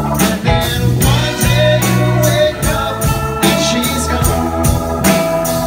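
Rock band playing live, with electric guitars, bass and drums beating a steady driving rhythm, about three hits a second, as the song kicks into double time.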